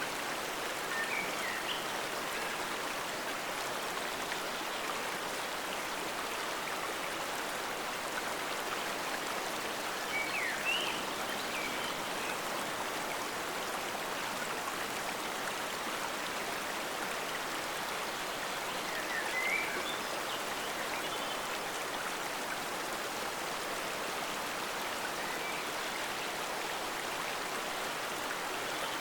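Forest stream flowing steadily, an even rushing of water. A few brief, faint high chirps stand out above it now and then.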